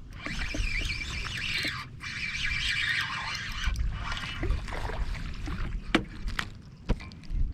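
Fishing reel being cranked as a hooked largemouth bass is brought in, with a few sharp knocks near the end.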